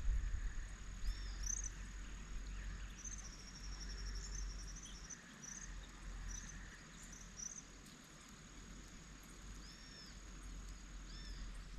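Evening outdoor ambience: a steady high-pitched insect drone that stops just before the end, with scattered short bird chirps over it. A low rumble underneath fades out about five seconds in.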